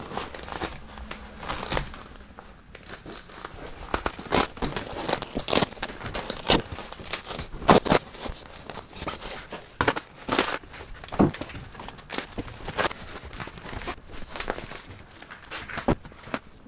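Velcro strips on a Seizmik soft door ripping apart and pressing back, with the door's fabric crinkling as it is pulled tight over the frame bar. A string of irregular rasps and crackles.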